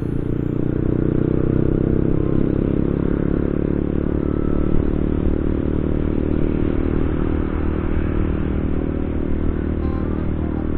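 Honda CB150R's 150 cc single-cylinder engine running steadily under the rider, heard through a helmet camera.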